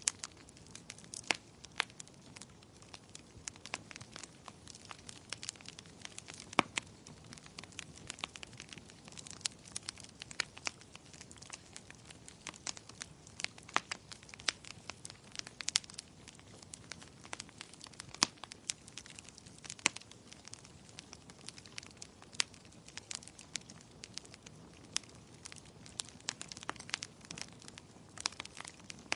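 Wood fire in a fireplace crackling, with irregular sharp pops and snaps over a low steady hiss of burning.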